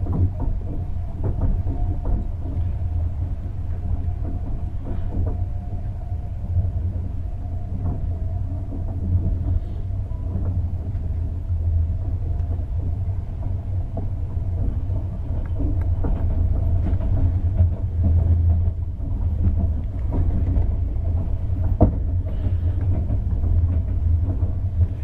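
Passenger train carriage in motion, heard from inside: a steady low rumble from the wheels and running gear, with scattered clicks and knocks and a faint steady hum above it.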